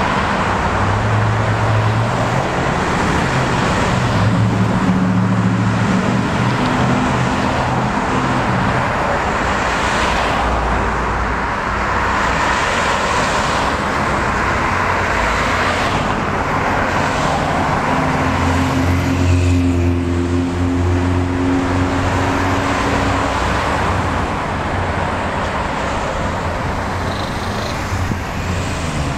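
Steady city road traffic: cars passing with tyre noise and engine hum.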